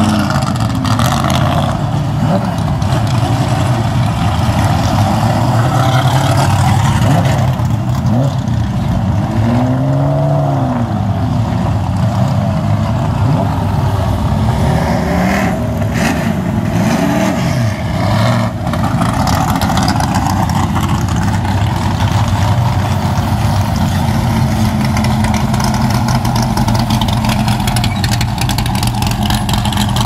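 Vintage race car engines running loud and rough at low speed, with the engine note swelling and falling as cars are revved or drive past, most clearly about ten seconds in and again around sixteen to eighteen seconds.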